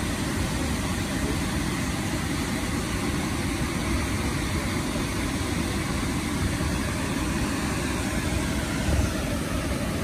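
Steady roar of whitewater cascading over a wide, stepped rocky waterfall, an even rushing noise with a deep rumble underneath.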